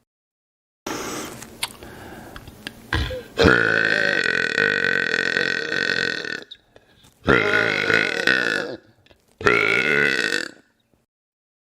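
A man burping loudly: one long, drawn-out burp, then two shorter burps with brief gaps between them.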